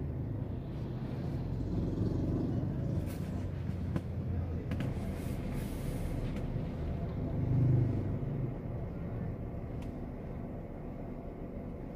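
Street traffic heard from a stopped vehicle: a steady low engine rumble with motorbikes and cars going by, one passing vehicle swelling louder about eight seconds in.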